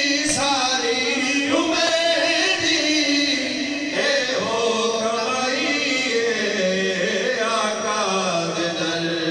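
A man singing a Punjabi devotional naat into a microphone, holding long, wavering drawn-out notes.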